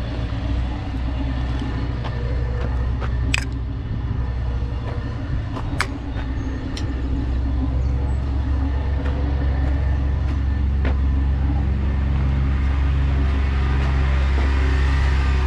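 Heavy truck diesel engine idling with a steady low rumble that grows louder over the second half, with a couple of sharp metallic clicks a few seconds in.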